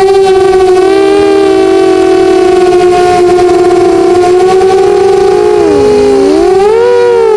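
Brushless motors and propellers of an Eachine 250 FPV racing quadcopter whining loudly, several close pitches gliding together with the throttle: a dip about six seconds in, then a rise near the end.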